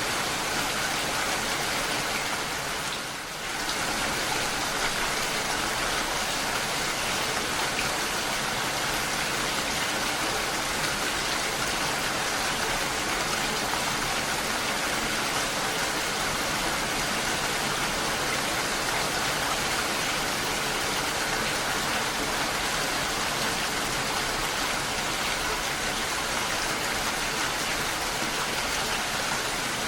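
Steady rain falling, a dense even hiss, with a brief dip in level about three seconds in.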